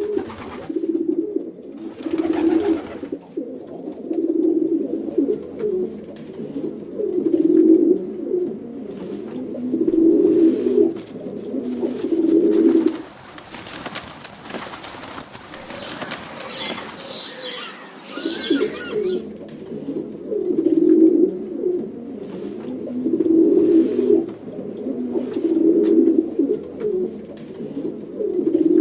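Pigeons cooing: low, throaty coos repeated every couple of seconds. They pause about halfway through, and a short stretch of higher, scratchy sound comes in before the cooing resumes.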